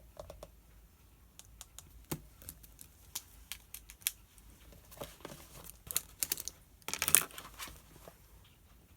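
Desk study sounds: scattered light clicks and taps, then a brief rustle of paper about seven seconds in, which is the loudest sound.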